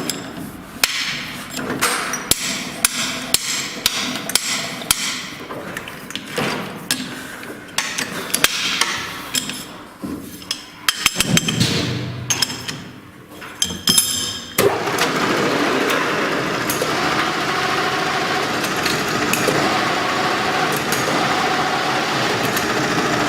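Irregular hammer taps and knocks on metal parts, many in quick succession, for about fourteen seconds. Then a machine or power tool starts suddenly and runs on steadily with a dense hiss.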